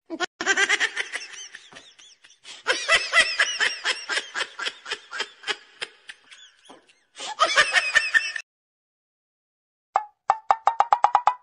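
Laughter in three loud bouts of rhythmic pulses, each cutting off abruptly into dead silence, then a quick run of short pulses near the end.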